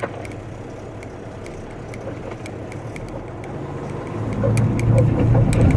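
Dump truck's diesel engine running, heard from inside the cab, getting louder and heavier about four seconds in. Light, fairly regular ticking runs over it.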